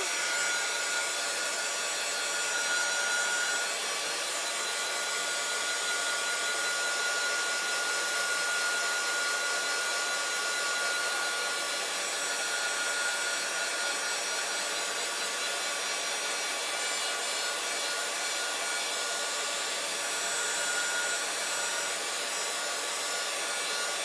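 Handheld craft heat gun blowing steadily on a paper tag to dry sprayed ink, a constant rush of air with a thin steady whine.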